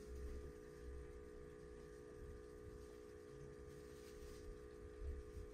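Faint steady electrical hum from a household appliance, made of several held tones, with a low uneven rumble underneath: quiet room tone.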